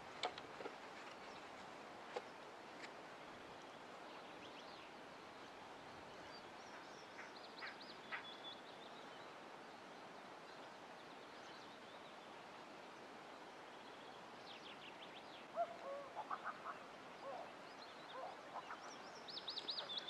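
Birds calling over a faint steady hiss, with high, quick trilled calls and a run of lower calls about three-quarters of the way in. A few light clicks come near the start.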